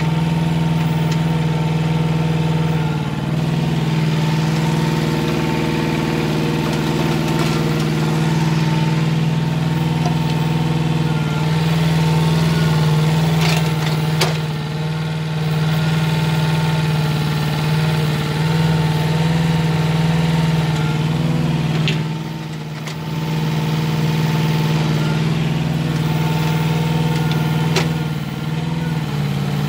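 Hanix mini excavator's engine running steadily as the arm and bucket dig, its level dipping briefly a few times. A few sharp knocks come about halfway through, a little past two-thirds and near the end.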